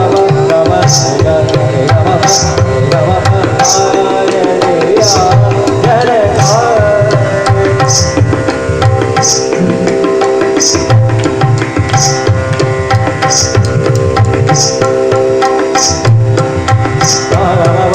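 Devotional bhajan music: tabla playing a steady rhythm under long held melodic notes, with a bright high stroke marking the beat about every second and a half.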